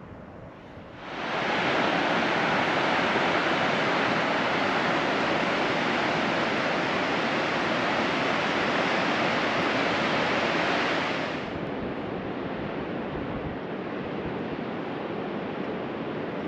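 Steady rush of a fast mountain river, starting abruptly about a second in and dropping to a quieter steady rush about eleven seconds in.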